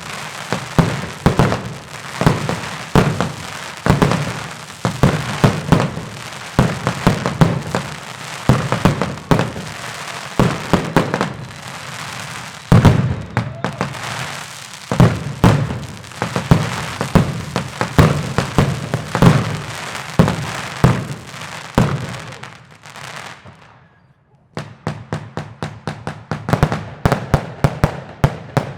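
New Year's Eve fireworks and firecrackers going off in dense, overlapping bangs. About 23 seconds in there is a brief lull, followed by a fast run of sharp cracks.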